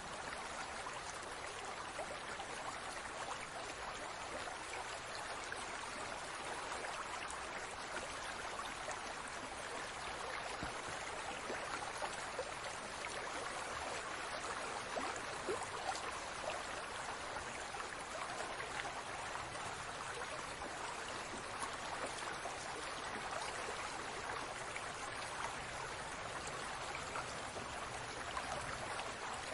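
Aquarium water bubbling and trickling steadily, a continuous wash of small bubbles and running water.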